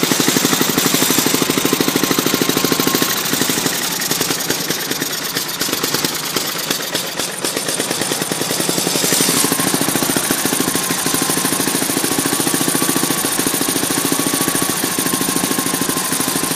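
Experimental spark-ignition engine running on a hydrogen, oxygen and steam mixture, firing in a rapid, even stream of sharp knocking beats. A faint steady high whine joins about halfway through.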